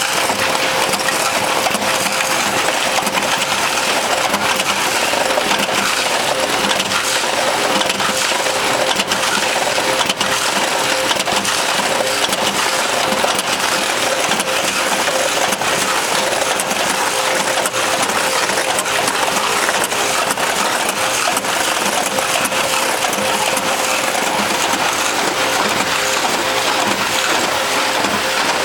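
Automated bottle-filling and conveyor line running: empty plastic bottles clattering against each other and the guide rails in a continuous stream of small clicks, over steady machine noise with a constant tone.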